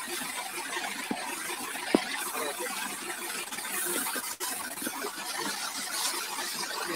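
Jet of water from a hose spraying onto a tractor-mounted rotavator, a steady hiss and splatter of water on metal. A short sharp squeak about two seconds in.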